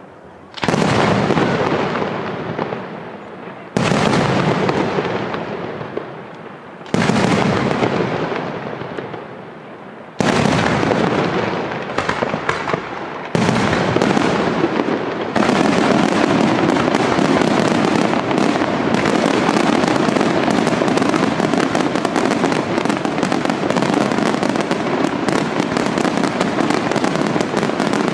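Aerial firework shells bursting: a sharp loud bang about every three seconds, each fading in a long rumble. A little past halfway it gives way to a continuous barrage of overlapping bursts.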